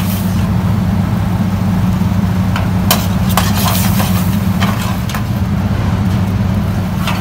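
Steady low mechanical hum of commercial kitchen equipment, with a steel ladle stirring thick gravy in a kadhai and clinking against the pan a few times.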